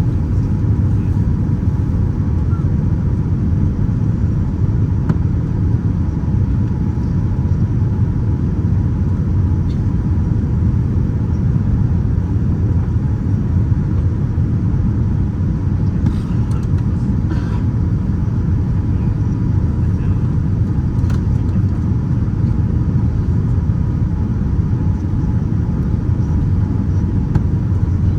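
Steady, loud cabin rumble of a Boeing 787-9 airliner in flight, heard from an economy-class seat, with a thin steady tone running through it.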